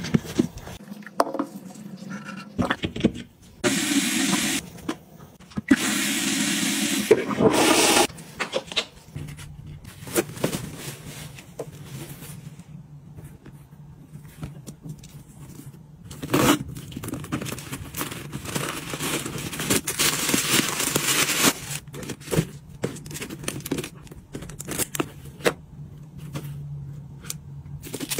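Bathroom cleaning and handling sounds: several stretches of scraping and rubbing noise, with clicks and knocks of items being handled in between.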